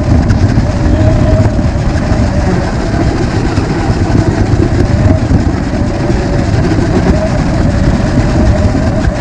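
RC rock crawler driving, a loud steady rattling rumble with a faint wavering motor whine running through it.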